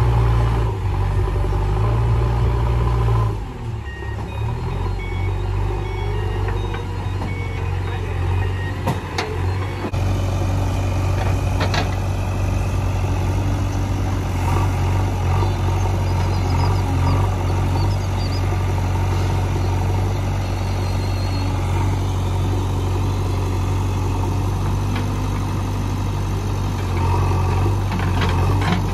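Heavy diesel engine of an earth-moving machine running steadily, easing off briefly a few seconds in, with a few short knocks.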